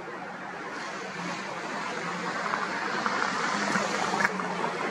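Distant jet noise of a Boeing E-6B Mercury's four CFM56 turbofans as it flies high overhead: a steady rushing sound that grows louder, with a few small clicks near the end.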